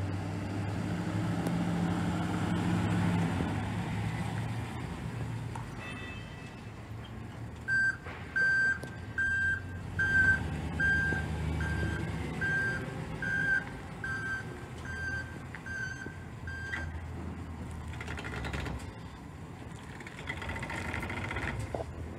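1999 Chevrolet C/K 3500 service truck driving with its engine running, then backing up with its reversing alarm beeping about one and a half times a second for roughly nine seconds, then moving off again with the engine running.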